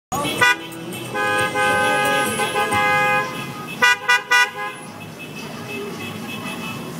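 Car horns honking: a short toot, then a long steady blast of about two seconds, then three quick toots, over the noise of a busy street.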